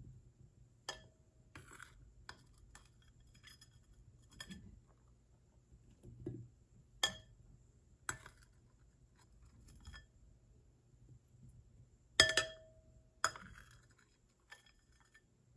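Stainless mesh skimmer spoon clinking and tapping against a glass bowl of water while scooping out blueberries: about a dozen irregular taps, a few leaving the glass briefly ringing, the loudest clink about three-quarters of the way through.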